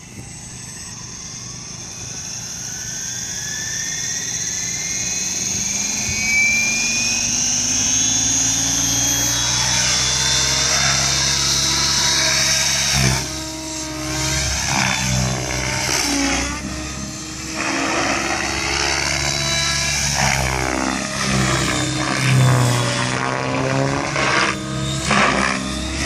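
Thunder Tiger Raptor G4 E720 electric RC helicopter, driven by a Scorpion brushless motor, spooling up: a rising motor whine and growing rotor noise build over the first several seconds. It then flies aerobatics, its whine and blade noise rising and falling in pitch and loudness as it manoeuvres.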